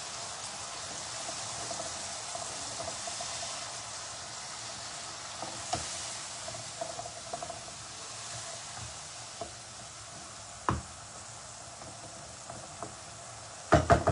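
Ground spice masala with added water sizzling and spitting steadily in a hot pan as it fries down, with a few sharp knocks, a quick cluster of them near the end.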